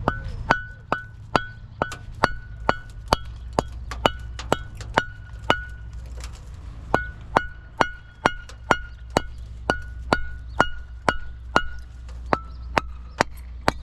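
A hammer striking metal in a steady rhythm, about two blows a second, each with a short metallic ring, with a brief pause about halfway through. A steady low hum runs underneath.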